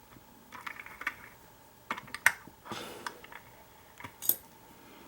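Irregular metal clicks and knocks as a Master Lock 6230 padlock is set and clamped in a bench vise, with the sharpest knock about two seconds in and another a little after four seconds.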